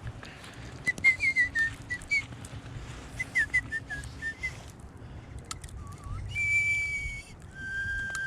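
Clear whistled notes: two quick runs of short sliding notes, then two long held notes, the second lower than the first, near the end.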